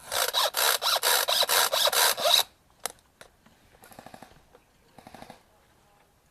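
Airsoft guns firing: a loud rapid string of about a dozen shots lasting a little over two seconds, then two single shots. Two shorter, fainter bursts of fast fire follow later.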